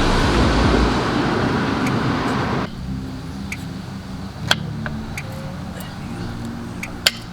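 Loud steady rushing noise like road traffic that cuts off abruptly under three seconds in. A quieter low background follows, with a couple of sharp clicks of metal brake parts or tools being handled.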